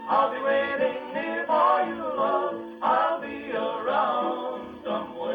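A 1940s Western song recording: a vocal harmony group singing over acoustic guitar, with a dull, treble-less sound of an old record.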